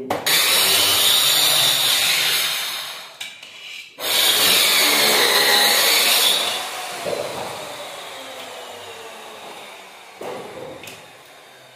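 A power tool motor runs loudly in two bursts of about two seconds each, then winds down with a slowly falling tone.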